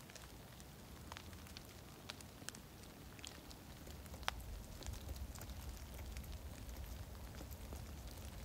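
Freezing rain falling: scattered sharp ticks and patters of drops striking ice-glazed pine needles and crusted snow, over a faint hiss. A low rumble grows louder about halfway through.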